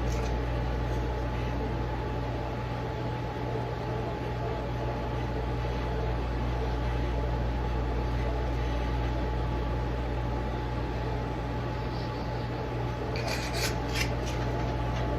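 Steady mechanical hum with a constant low drone and a thin steady tone above it, and a few light clicks near the end.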